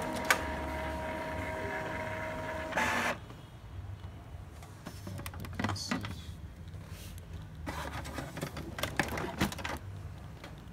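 Epson EcoTank inkjet printer's mechanism whirring steadily with a high, even hum during its head-cleaning cycle, swelling briefly about three seconds in and then stopping. After that come scattered clicks and knocks.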